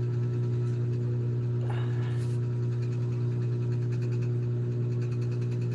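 Steady low hum of a running motor or machine, with a ladder of steady tones above it. A brief faint voice sounds about two seconds in.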